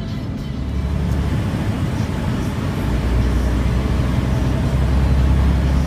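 Inside a semi-truck cab: the Freightliner's Detroit diesel engine running under way with road noise, a steady low rumble that builds gradually louder.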